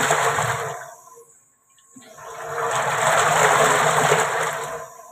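Liquid churning and swishing in a stainless-steel mixing tank as its motor-driven agitator stirs it, swelling and fading in a cycle of about four seconds. The rushing dies away about a second in, stops briefly, and builds again, then fades once more near the end: the timer is reversing the agitator's direction every four seconds.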